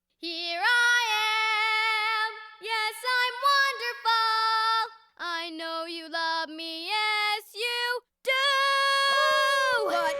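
A young girl's voice singing unaccompanied: held notes in several short phrases with brief breaks between them. The last long note, near the end, bends down in pitch.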